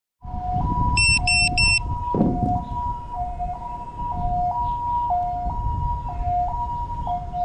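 A two-tone hi-lo siren, switching between two pitches about every half second. Three short high electronic beeps come about a second in, and a knock follows just after two seconds, over a low rumble.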